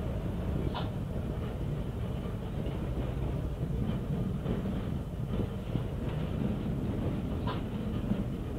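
Glasgow Coronation Mark 1 tramcar running on street track: a steady rumble of motors and wheels on rail, with two brief high-pitched squeaks, one about a second in and one near the end. Heard through a muffled old tape recording.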